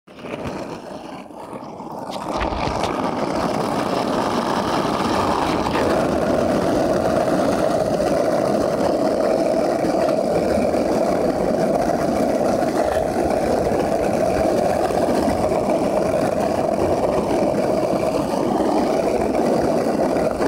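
Skateboard wheels rolling over rough asphalt, a steady rolling rumble that grows louder over the first few seconds and then holds.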